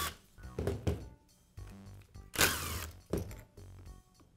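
Screwdriver prying at the seam between an angle grinder's gear housing and motor housing: a few knocks and clicks, then a louder scrape about two and a half seconds in as the housings are worked apart.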